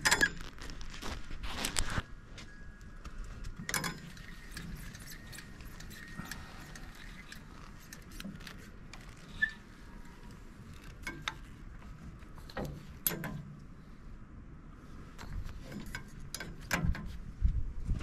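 Scattered knocks, clicks and light rattles, with a few louder knocks near the end.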